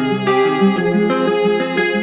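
Background music: plucked guitar notes with a violin-like melody over them, in a steady rhythm.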